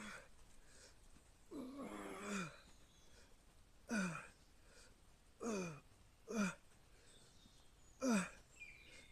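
A man's short voiced exhales, each sliding down in pitch, one every one to two seconds: effort grunts on push-up reps under a 20 kg weighted vest. The first, about two seconds in, is a longer groan.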